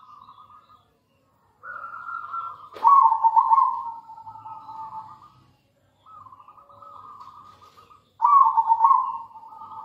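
Zebra dove (perkutut) cooing: rapid rolling strings of short coos in three phrases separated by brief pauses, the loudest starting about three seconds in and again near the end. A sharp click about three seconds in.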